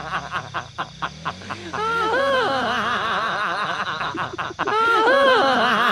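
Background music: a Javanese-language song with a sung melody over a beat, the same melodic phrase coming round twice.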